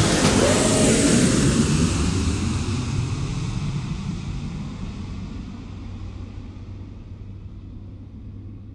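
Jet airliner roar, a rumble and hiss that slowly fades away as the plane recedes.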